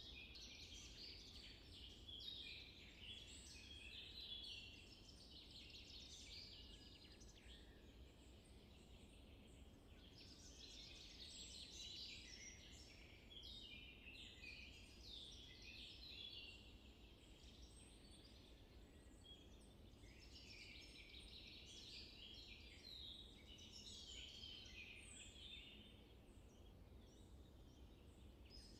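Faint chorus of wild birds chirping and twittering in overlapping bouts, thinning out briefly a few times, over a low steady background rumble.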